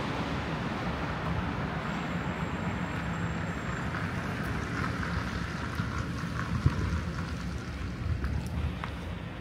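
City street traffic: a steady low rumble of road vehicles, with the hiss of a passing vehicle dying away in the first second or two.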